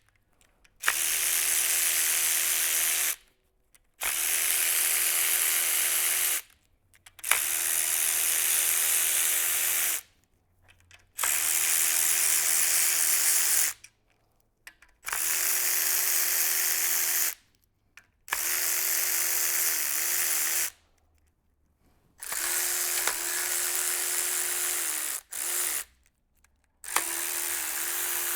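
Cordless electric power tool spinning out engine bolts in repeated runs of two to three seconds, about eight in all with short pauses between, each a steady whine.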